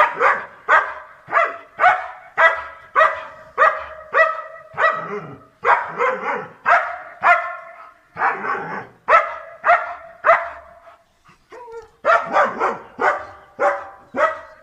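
A dog barking over and over, about two barks a second, with a short break about eleven seconds in.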